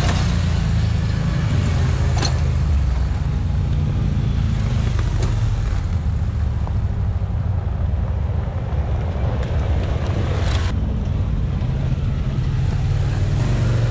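ATV and side-by-side engines running steadily as the machines roll across a wooden plank bridge. A few sharp knocks come through about two, five and ten and a half seconds in.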